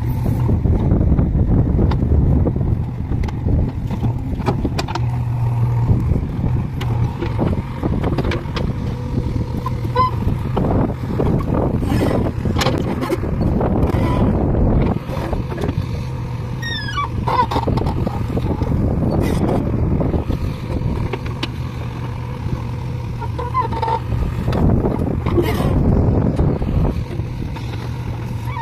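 JCB 3DX backhoe loader's diesel engine running steadily under load while the backhoe digs, with occasional knocks.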